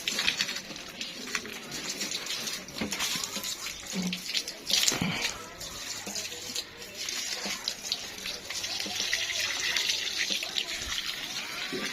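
Running water splashing steadily inside a refrigerator cabinet as it is rinsed out, with a louder splash about five seconds in.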